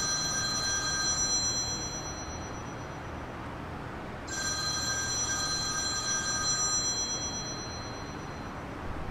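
An electronic ring sounds twice, about four seconds apart. Each ring is a held chord of several tones that fades out over a couple of seconds.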